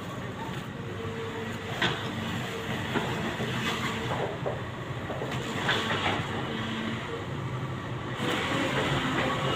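SANY SY75C Pro excavator's diesel engine running, with occasional sharp metallic clanks, growing louder about eight seconds in.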